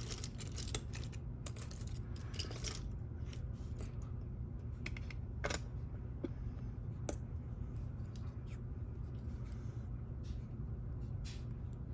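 Small metal lock parts and tools clicking and clinking as they are handled, with a cluster of clicks in the first few seconds and scattered single clicks after. A steady low hum runs underneath.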